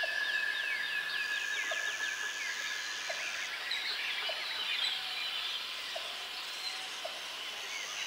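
Forest birds calling: a rapid run of descending whistled notes in the first second and a half, then scattered chirps, over high steady buzzing tones that stop and start again.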